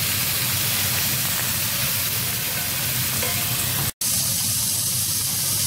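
Salmon fillets sizzling in a hot cast iron skillet: a steady frying hiss that breaks off for an instant about four seconds in.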